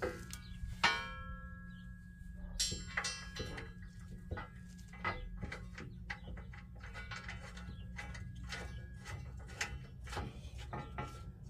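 Steel steering box brace clanking and knocking against a Jeep Cherokee XJ's frame as it is worked into position by hand, with ringing metal clangs about a second in and near three seconds, then a run of lighter knocks and clicks.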